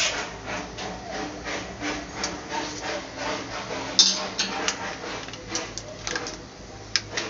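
Metal clicks and scrapes of a wrench working the oil drain bolt on an air compressor's crankcase, a few clicks a second, with one sharper metallic clink about four seconds in.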